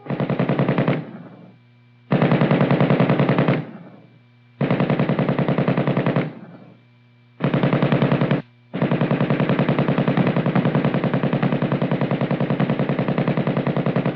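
M60 general-purpose machine gun firing 7.62 mm NATO rounds on automatic, as a rapid, even rattle of shots. It fires four short bursts of about one to one and a half seconds, then one long burst of about six seconds near the end. Each burst trails off in an echo.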